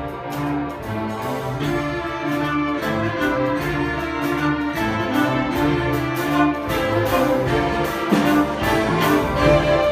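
School string orchestra playing live, violins over cellos with a brisk, steady pulse of repeated notes, growing louder in the last few seconds.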